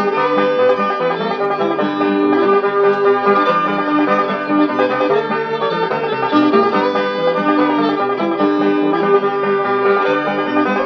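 Old-time string band playing an instrumental break on banjo, guitars and fiddle, without singing, from a 1938 Bluebird 78 rpm record.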